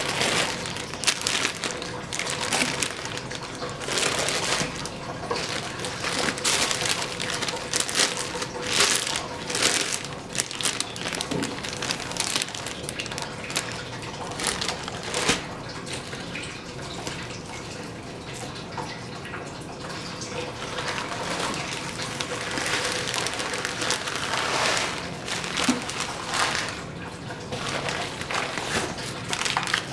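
Foil bubble insulation liner and brown paper bags crinkling and rustling as hands rummage inside a meal-kit box, in irregular bursts.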